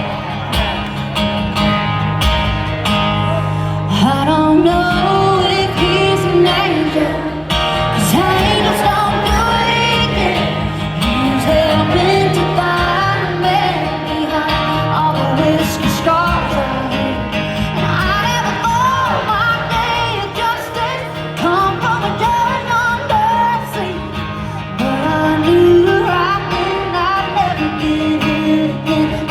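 A woman sings a country song live over a full band with guitar, carried through a concert sound system.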